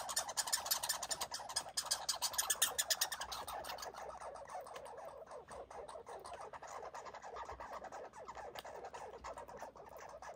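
American red squirrel chattering: a fast, rattling run of sharp clicks that breaks off about three seconds in, leaving a fainter, steady rustle.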